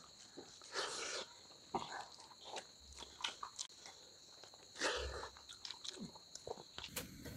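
Two people eating rice with their fingers from steel plates: faint chewing and mouth clicks with the soft squish of hand-mixed rice, and two louder mouth noises about one and five seconds in.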